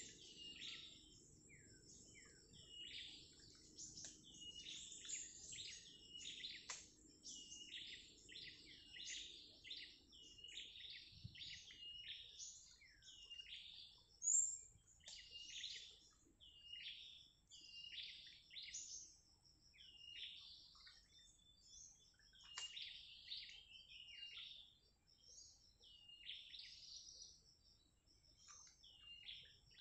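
Birds chirping, a continuous run of short, high calls repeating about every half-second. About halfway through comes one brief, sharp, high-pitched sound, the loudest moment.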